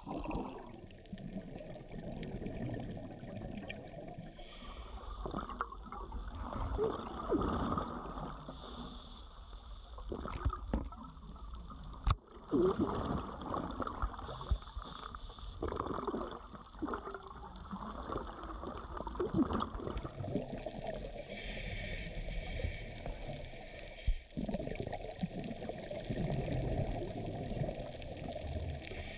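Water sloshing and gurgling around a camera held underwater, with a sharp knock about twelve seconds in.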